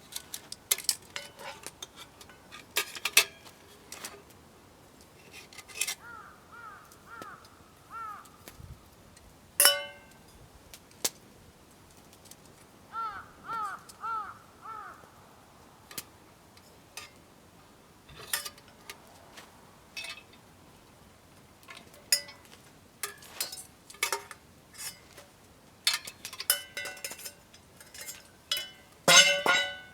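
Metal camping gear, grill and cookware parts clinking and clattering as they are handled, with a sharper clatter near the end. A bird calls twice in short runs of four or five quick arched notes.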